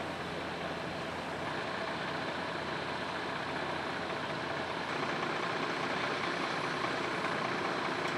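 Fire truck's engine running steadily, an even rumble and hiss.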